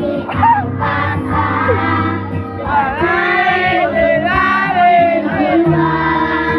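A choir of children and teenagers singing together over a steady instrumental accompaniment.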